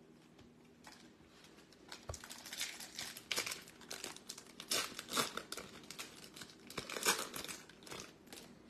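Foil wrapper of a Topps Chrome baseball card pack being torn open and crinkled, irregular crackles starting about a second in.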